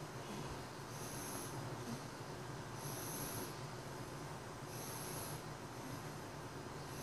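Seven-month-old baby snoring in sleep, a noisy breath about every two seconds.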